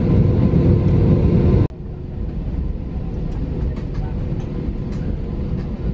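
Jet airliner cabin noise from a window seat: a steady low rumble of engines and wheels on the ground as the plane gathers speed for takeoff. The level drops abruptly about two seconds in to a quieter steady rumble with a few faint ticks and rattles.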